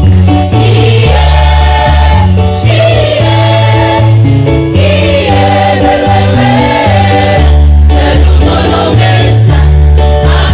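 Choir singing an East Nusa Tenggara regional song together, amplified, over backing music with deep sustained bass notes that change every second or so.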